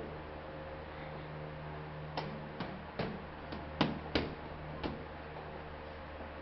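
Boxing gloves smacking against a trainer's bare palms as a boy punches: about seven sharp smacks in a quick, uneven run from about two to five seconds in, over a steady low hum.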